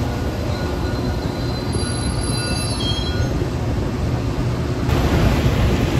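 Metra bilevel commuter cars rolling past at speed: a steady rumble of steel wheels on rail, with a faint high wheel squeal in the middle and the rush growing louder near the end.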